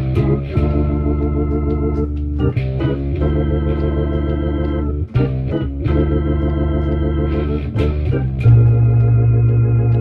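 Improvised jazz chord progression on an organ-sounding keyboard: held chords over a strong bass, changing about every two and a half seconds.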